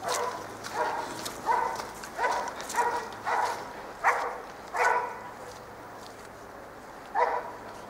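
Search-and-rescue dog barking repeatedly, a bark about every two-thirds of a second, then a pause and one more bark near the end. This is the alert bark a rescue dog gives to indicate a victim found in the rubble.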